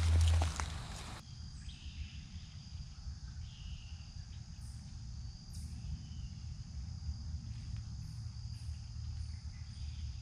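Footsteps crunching through dry leaf litter for about the first second, then a steady, high-pitched drone of crickets and other insects in the woods.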